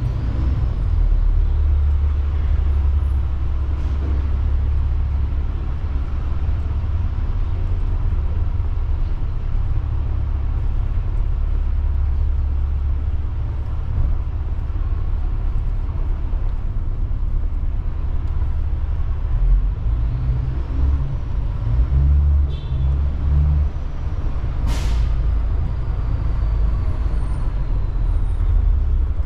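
City street ambience: a steady low rumble of traffic and street noise, with a brief sharp hiss near the end.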